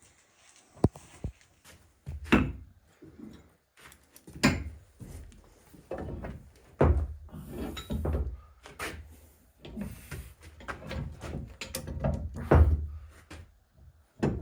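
NV4500 transmission parts clunking and scraping as they are worked into the case by hand: an irregular run of knocks and thuds with sliding, rubbing sounds between them, the loudest knocks about 2, 4.5, 7 and 12.5 seconds in.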